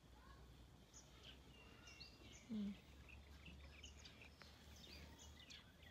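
Faint, near-silent background with scattered birds chirping, and one brief low sound about two and a half seconds in.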